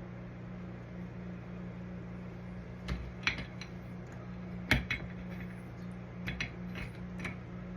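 Metal clutch parts of a Comet 780 clutch clinking as the spring and roller assembly is handled and set back into the clutch: several light clinks and one sharper one about halfway through, over a steady low hum.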